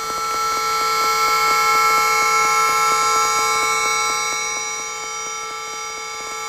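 Drone synthesizer run through Kaoss Pad effects: a dense cluster of held tones sounding together like a sustained alarm-like chord, over a fast, even ticking pulse of several ticks a second. It swells louder over the first couple of seconds and eases off toward the end.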